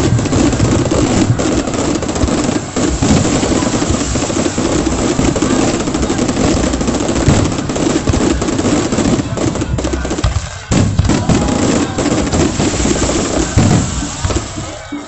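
Fireworks going off in a dense, continuous barrage, many sharp bangs overlapping, with a short lull about ten seconds in before the bursts resume.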